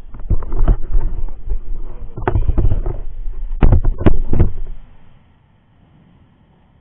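Knocks and low rumbling from the camera being handled and repositioned, with several sharp bumps, stopping about five seconds in and leaving a faint steady background.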